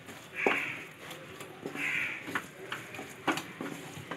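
A wooden spatula scraping and knocking in a nonstick pan as it stirs a thick coconut-and-khoa filling, giving several sharp clicks. A bird calls twice in the background, about a second and a half apart.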